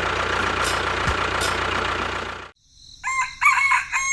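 A dense, steady noise cuts off suddenly about halfway through. A rooster then crows: a few broken notes, then one long held note near the end.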